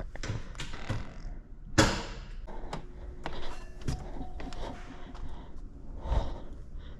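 Scattered knocks and thumps of someone moving about, with one sharp bang about two seconds in and a heavier thud near the end.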